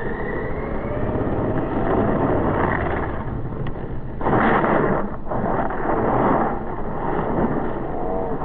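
Traxxas XO-1 RC car's brushless electric motor whining and climbing in pitch as it accelerates in the first second or so. This gives way to a rushing, wind-like noise with two louder surges around the middle, as the car goes into a hard right turn and flips over.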